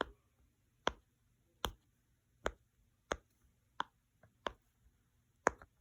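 Silicone unicorn pop-it fidget toy, its bubbles pressed one at a time: about eight sharp pops, one a little under every second.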